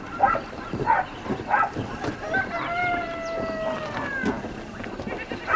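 A rooster crowing once: a single long call of about two seconds in the middle, its pitch dipping slightly at the end. Short knocks come in between, a couple of times a second.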